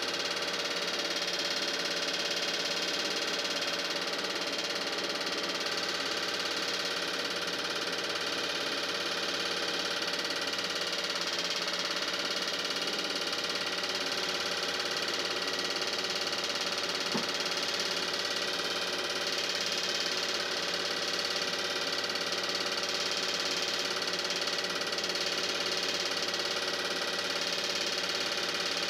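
Film projector running steadily: an even mechanical whir and hum with fixed tones, unchanged across every picture cut.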